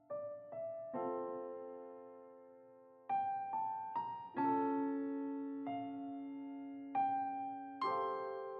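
Slow, gentle background piano music: single notes and chords struck about every half second to a second and a half, each left to ring and fade.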